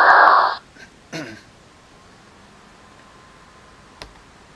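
A short hissing slide-transition sound effect, about half a second long, as the presentation slide dissolves at the start, followed by low room tone and a single soft click near the end.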